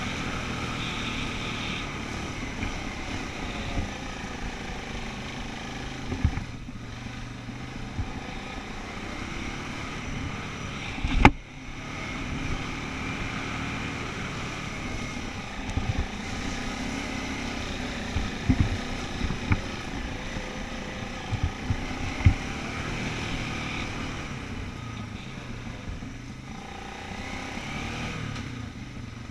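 ATV engine running along a bumpy dirt trail, its pitch rising and falling with the throttle, with scattered knocks and clunks from the bumps and one loud thump about eleven seconds in.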